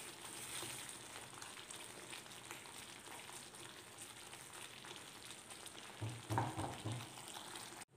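Onion-tomato masala, thinned with a little water, sizzling and bubbling in a non-stick pan while a wooden spatula stirs it. A brief low murmur about six seconds in, and the sound cuts out for an instant near the end.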